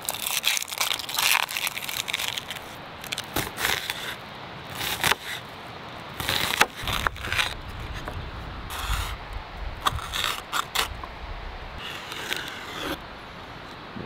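Irregular crunching and scraping sounds, a dozen or so short bursts with low rumble in between.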